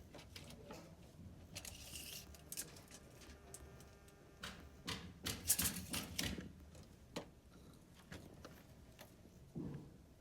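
Scattered clicks and knocks of plumbing parts being handled, with a short hiss about two seconds in and a quick run of clicks around the middle.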